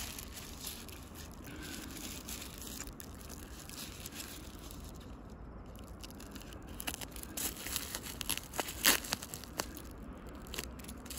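Bubble wrap crinkling and rustling as a taped parcel is handled. From about seven seconds in come sharp crackles and snaps as the tape and wrap are cut with a small pocket-knife blade, the loudest a little past halfway through that stretch.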